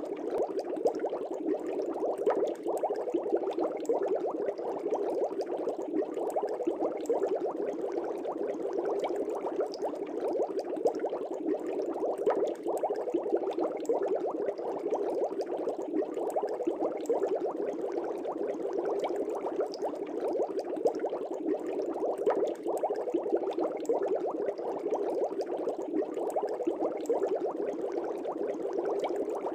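Aquarium air bubbles rising and breaking at the water surface in a fish tank: a continuous dense bubbling and gurgling, steady throughout, made up of many small rapid pops.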